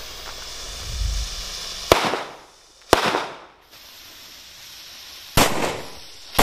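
Small Indonesian 'mercon kera' firecrackers exploding one after another in sharp bangs: the first about two seconds in, a second a second later, a third near the end, and a fourth just as it closes.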